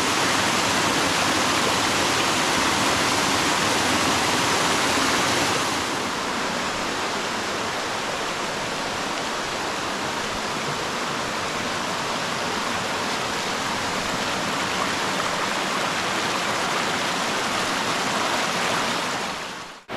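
Mountain valley stream water rushing in a steady, even wash. It drops slightly in level about a third of the way through and fades out at the very end.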